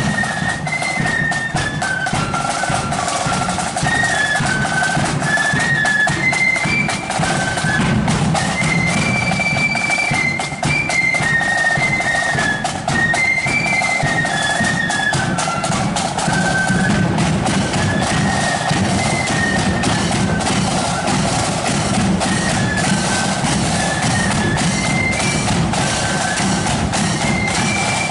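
Marching flute band playing a tune: many flutes together carry a high melody that steps up and down, over steady side-drum and bass-drum beats.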